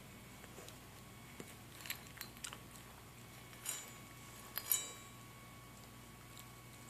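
Small dog eating dry kibble from a stainless steel bowl: scattered crunches and clinks of kibble and muzzle against the metal. The loudest is a ringing clink of the bowl nearly five seconds in.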